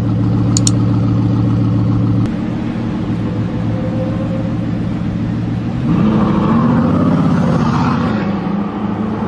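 Bugatti Veyron's quad-turbocharged W16 engine idling with a steady low note, then revving up about six seconds in as the car pulls away, its pitch rising and then settling back down.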